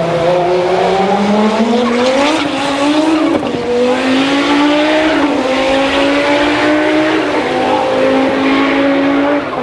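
Audi 200 quattro race car's turbocharged five-cylinder engine running hard under load, its pitch climbing with brief dips about three and a half and seven and a half seconds in.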